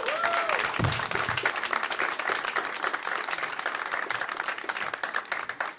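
Audience applauding at the end of a stand-up comedy set, a dense patter of many hands clapping that thins out toward the end.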